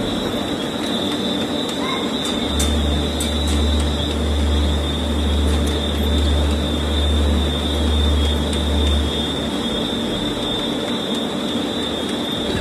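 Factory machinery running steadily, with a constant high whine and a loud low hum that cuts in about two and a half seconds in and drops out about nine seconds in.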